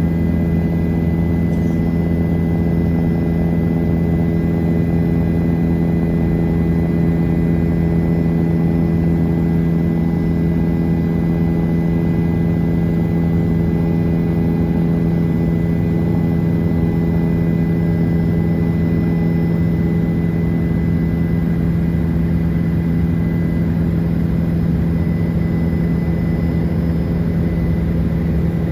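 Helicopter running steadily: a constant, loud hum with a strong low tone, plus a faint high whine.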